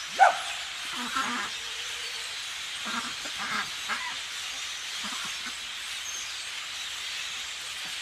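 A large flock of blackbirds calling together in the treetops, a dense steady chatter that blends into a hiss. A few louder single calls stand out, one right at the start and others scattered through.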